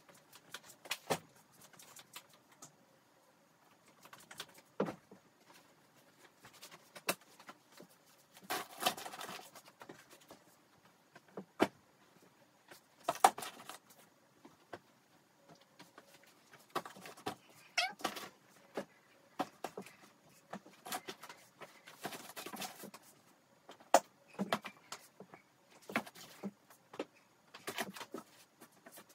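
Clothes and plastic vacuum storage bags being handled and packed into a suitcase: scattered rustles and crinkles with short sharp knocks and clicks.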